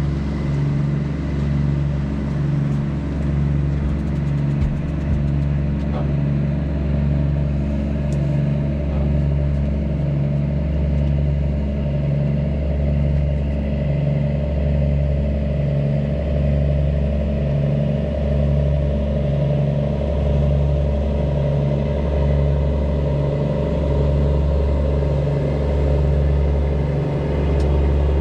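A steady low engine drone with a slow, even throb, about one beat a second.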